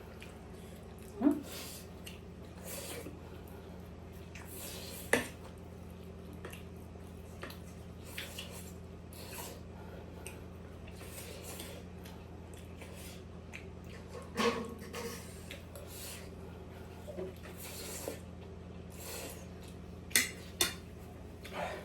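Eating sounds: scattered sharp clinks and scrapes of cutlery on a plate, a few of them much louder than the rest, as momos and noodles are eaten. A steady low hum runs underneath.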